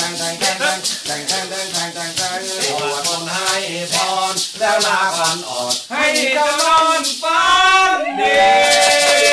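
Maraca shaken in a steady rhythm of about four strokes a second, under a singer's voice in a mor lam song; near the end the voice rises into long held notes.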